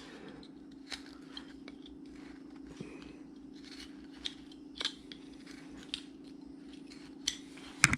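Hand carving tool cutting into wood: a series of crisp, irregular snipping clicks as the blade bites and slices, over a steady low hum.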